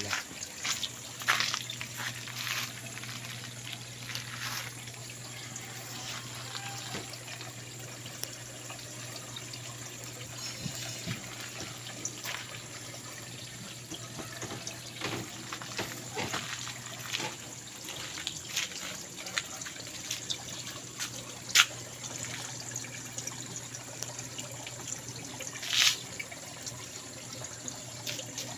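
Water trickling through a hydroponic lettuce system's pipes, steady over a low hum, with scattered light clicks and two sharper clicks in the last third.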